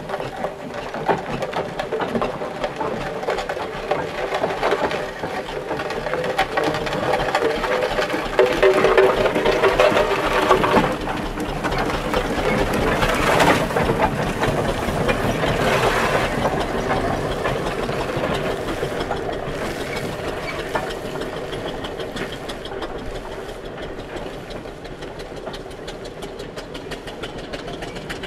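Foster steam traction engine running on the road with an even mechanical beat. It grows louder as it draws close, is loudest around ten to fifteen seconds in, then fades as it moves away.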